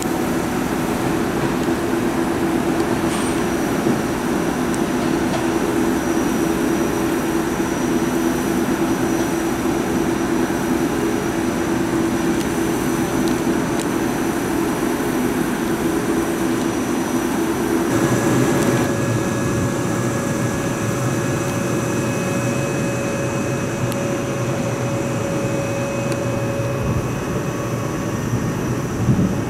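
Electric commuter trains standing at a station, giving a steady electrical hum with a faint high whine. About eighteen seconds in, the sound changes abruptly to a different steady hum with higher tones.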